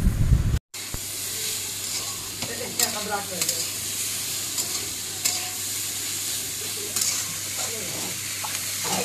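Shredded cabbage and carrot sizzling as they fry in a steel kadhai, a metal spatula stirring and scraping against the pan now and then. It opens with under a second of low rumbling noise that cuts off abruptly.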